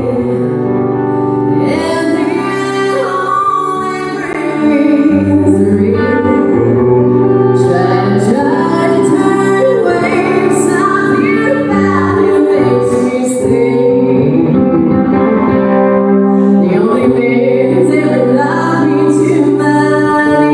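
A woman singing live into a microphone with a band behind her: electric guitar, drums and keyboard. The band gets louder about four and a half seconds in.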